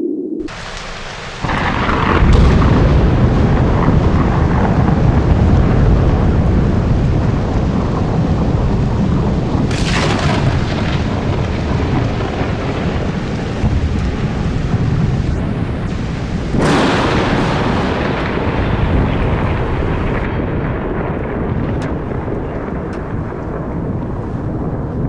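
Ambient electronic noise music played loud over a PA: a dense, thunderstorm-like wash of hiss and deep rumble that starts abruptly, with sudden surges of hiss about ten and seventeen seconds in.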